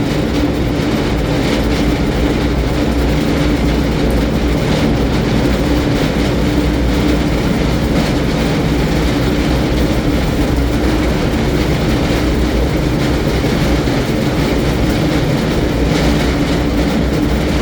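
TR2 wood grinder with a 25 hp motor running steadily, a loud continuous mechanical noise with a steady hum underneath.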